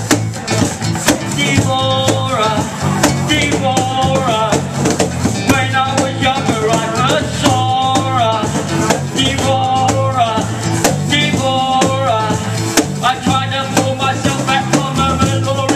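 Live band music with acoustic guitar, bass guitar and cajon keeping a steady beat, under a lead line of held, bending notes played on harmonica into a microphone.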